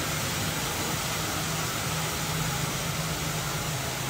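Steady rush of splashing fountain water around the hub of the Dumbo the Flying Elephant ride, over a low, steady mechanical hum from the spinning ride.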